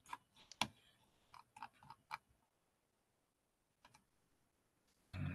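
Faint scattered clicks and taps in the first two seconds or so, then near silence apart from one more small tick about four seconds in.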